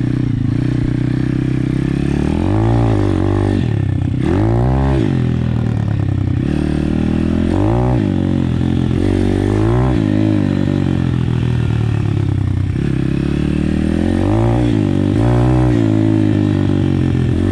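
Apollo RFZ pit bike's single-cylinder four-stroke engine running on the move, its revs rising and falling repeatedly as the throttle is opened and closed along the trail.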